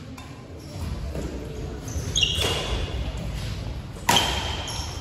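Badminton rally: rackets striking the shuttlecock and players' shoes squeaking on the court floor. A few short squeaks come around two seconds in, and the sharpest, loudest hit about four seconds in.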